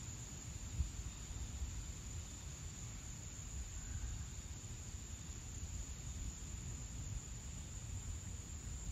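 Insects droning steadily in the woods, one continuous high-pitched buzz, over a low rumble, with a single brief knock about a second in.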